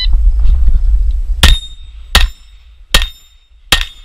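Four rapid 9mm shots from a Glock 34 pistol, about three-quarters of a second apart, each followed by the brief high ring of a steel plate being hit. A low rumble on the microphone comes before the first shot.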